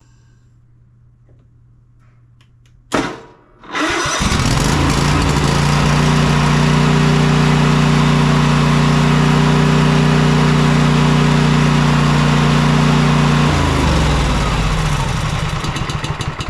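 Cub Cadet Enduro XT2's 679cc fuel-injected MTD engine cranking briefly about three seconds in, catching at once and running steadily, then shut off near the end and winding down. It starts readily, a sign that the starting and stalling fault has been cured.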